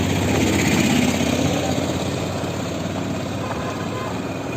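A motor vehicle's engine running steadily with a low hum under a broad noise, easing off slowly.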